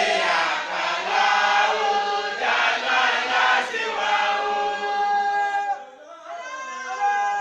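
A large group of voices chanting together in unison, holding long drawn-out notes. The chant drops away briefly about six seconds in, then the voices come back in on a new held note.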